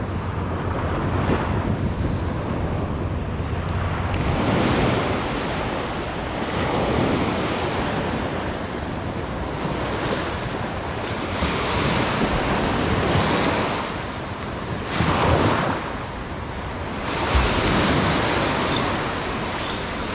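Small surf waves breaking and washing up a sandy beach, the wash swelling and fading every two to three seconds, with wind buffeting the microphone.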